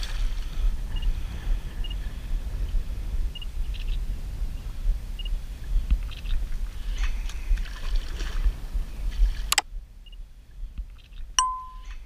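Steady low rumble and water noise aboard a fishing boat while a hooked wels catfish swims at the surface. About two-thirds of the way through, the sound cuts off abruptly, and near the end there is a short steady beep.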